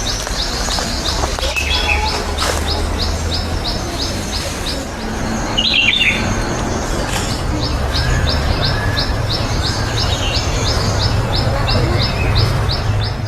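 A bird repeating a short high chirp about three times a second, pausing for a few seconds in the middle, with another bird's brief call about halfway through, over a steady low hum and outdoor noise.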